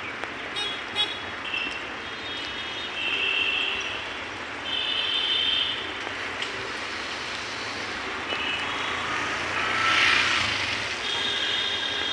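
Steady wind and rolling noise from riding an electric bicycle, broken by several short high-pitched whines, with a louder rush of noise near the end.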